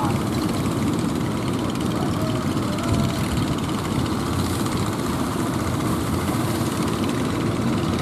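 Outrigger fishing boat's engine running steadily as the boat motors through the waves, with the wash of water under it.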